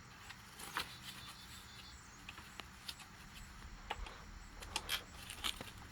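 Scissors snipping through plastic zip ties on the bike's packaging: a handful of separate short, sharp snips spread a second or so apart.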